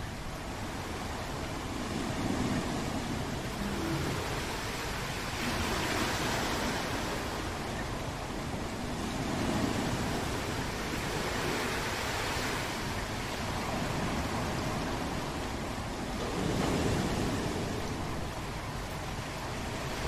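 Steady heavy rain, a dense even hiss that swells and eases every few seconds.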